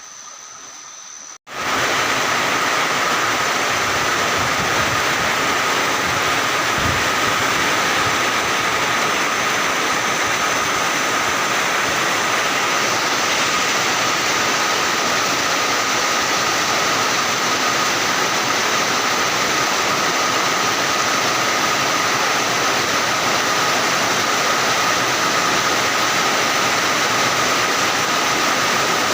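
Heavy rain falling in a steady downpour. It is quieter for the first second and a half, then after a brief break comes in loud and unchanging, with a thin steady tone running underneath.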